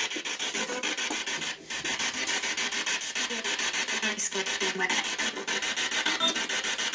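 Spirit box radio sweeping through stations: choppy static pulsing many times a second, with brief snatches of broadcast voices, played through a small external speaker. The device is picking up stray radio stations.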